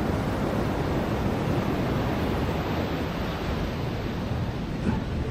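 Ocean surf washing onto a beach: a steady rush of breaking waves, heaviest in the low range.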